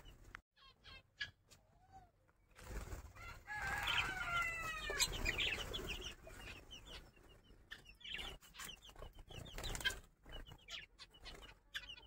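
A chicken gives one long call about four seconds in, among scattered short chirps of small cage birds such as finches.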